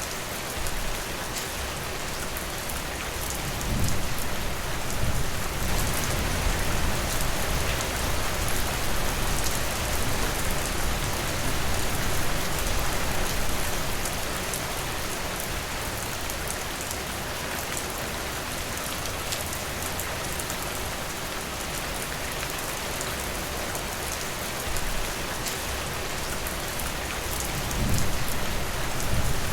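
Steady rain falling, a dense patter of drops. A low rumble swells briefly about four seconds in and again near the end.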